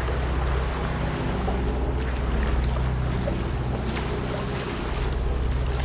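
Boat under way at sea: a steady low hum with water rushing past the hull and wind on the microphone.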